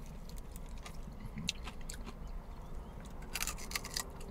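Biting and chewing crispy fried chicken with its crunchy coating crackling, with a denser run of crunches about three seconds in.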